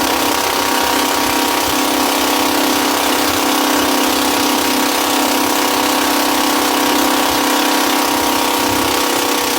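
Boat engine running steadily with an even, unchanging drone and a hiss over it.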